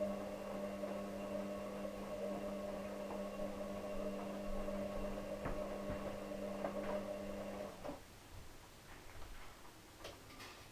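An electric appliance humming steadily, cutting off suddenly about eight seconds in, followed by a few faint clicks.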